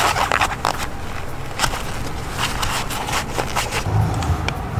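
Irregular scrapes and clicks of hand work, thickest about a second in and again mid-way, over a low steady hum.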